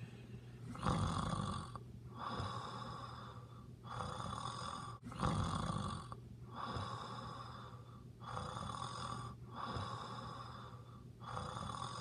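A person snoring: a steady run of rasping snore breaths, each about a second long with short gaps between them.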